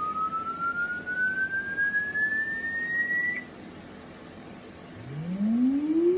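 A thin whistle-like tone climbs slowly and steadily for about three and a half seconds, then stops. After a short pause a second, lower tone starts deep and sweeps upward near the end.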